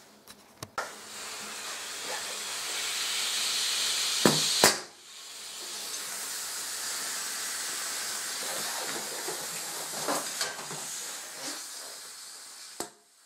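Compressed air hissing from a homemade airgun, with a few sharp clicks near the start. The hiss swells for several seconds and breaks off sharply about five seconds in. It then starts again and slowly fades.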